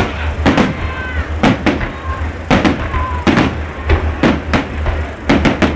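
Fireworks bursting overhead in a rapid, irregular string of sharp bangs, about two to three a second, over a steady low rumble.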